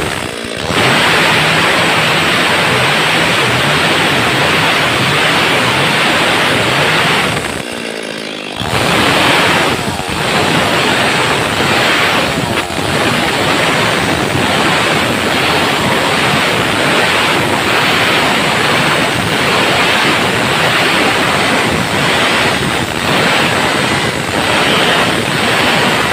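Stihl MS 382 two-stroke chainsaw running hard under load as it rips lengthwise through a squared timber beam. The sound is loud and steady, dipping briefly right at the start and again about eight seconds in before the saw cuts on.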